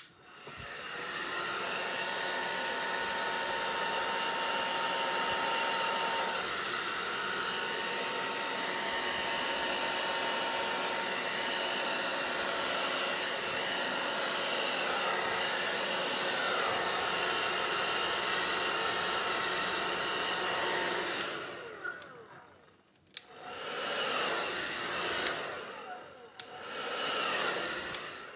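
Handheld hair dryer switched on, building up over about a second and then blowing steadily for about twenty seconds before being switched off. Two shorter blasts follow near the end.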